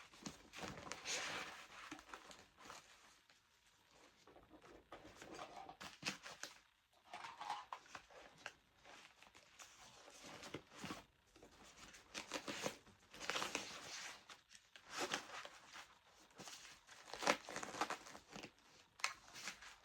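Rustling, crinkling and light knocks of camera gear and a fabric camera bag being handled, in uneven bursts a second or two apart, with a few short tearing sounds.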